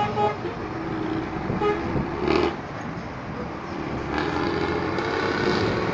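Intercity bus running with a loud, raspy aftermarket exhaust over a steady low engine rumble, with a few short horn toots.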